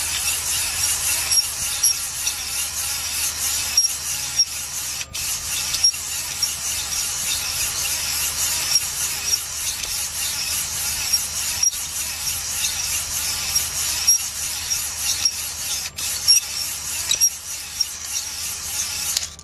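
Cordless drill spinning a flex-shaft cylinder hone with medium stones inside a kerosene-wetted cylinder bore of a Suzuki F10A engine block: a steady rasping hiss of stone on cast iron over the drill's whirr, with a light regular tick about twice a second. It stops abruptly at the very end.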